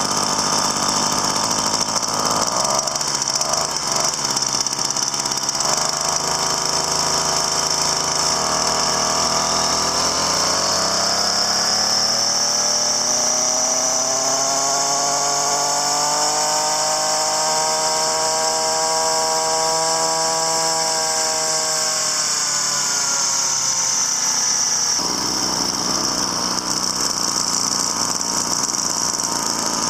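A small motor-driven machine test-running after being taken apart and cleaned. A steady high whine runs throughout, and a humming tone rises in pitch about a third of the way in, holds, then drops away near the end.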